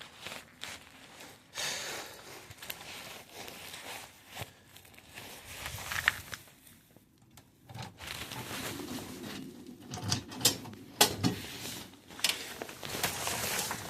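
Scattered clicks, knocks and rustling as a person moves about and handles a package, with a cluster of sharper knocks in the second half.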